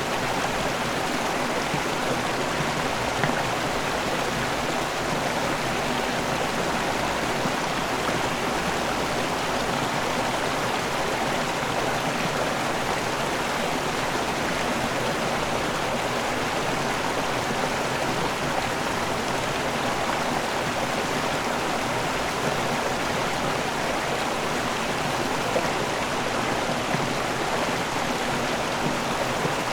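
River water rushing over a waterfall: a steady, unbroken rush of falling and flowing water.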